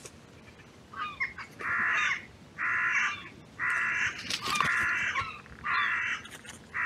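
Carrion crow cawing: a run of harsh, drawn-out caws at about one a second, five or six in a row.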